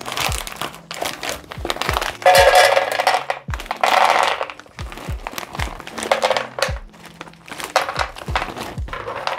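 Background music with a steady beat over a plastic bag crinkling as frozen pelmeni are poured from it into a frying pan. The dumplings tumble into the pan in two loud stretches about two and four seconds in.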